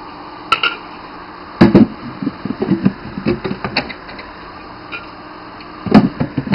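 Plastic clicks and knocks from a mini vending machine being handled: its door swung and a soda can reached for on its shelves. There is a run of clattering knocks about a second and a half in, and another loud pair near the end.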